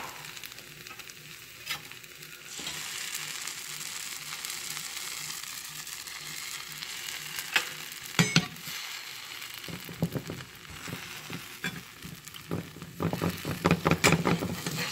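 Egg-soaked bread and cheese sizzling steadily in butter in a nonstick frying pan. There are a few light knocks, and near the end a quick run of clicks and scrapes as a spatula works under the sandwich to turn it.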